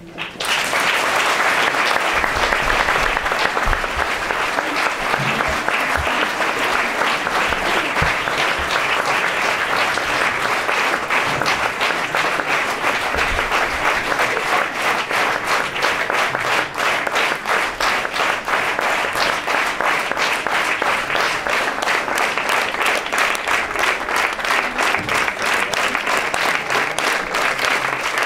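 Audience applause: many people clapping, breaking out suddenly and holding steady and loud.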